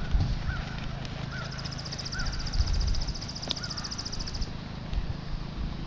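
Horse's hooves thudding dully on a dirt and grass arena as it is lunged under a rider. A high, rapid trill lasting about three seconds and a few short chirps sound over it.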